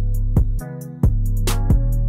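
Background music with deep sustained bass notes, a kick-drum beat and ticking hi-hats.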